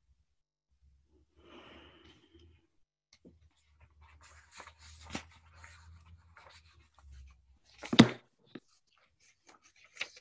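Faint desk and handling noise on an open microphone: scattered clicks and rustling, with one sharp knock about eight seconds in.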